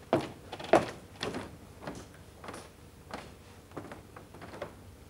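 Footsteps going up stairs, a step roughly every half second, growing fainter as the walker climbs away.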